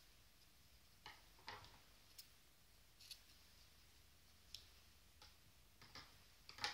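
Near silence with a few faint, scattered clicks and light rustles from handling a crochet hook and yarn.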